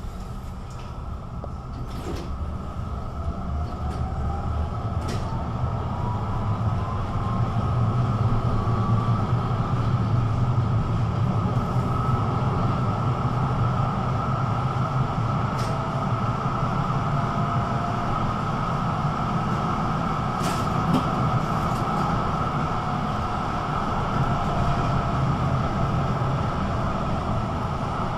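Duewag GT8 articulated tram under way. Its traction motor whine rises in pitch as it accelerates over the first several seconds, then the tram runs on at steady speed with a rumble and hum, broken by a few sharp clicks.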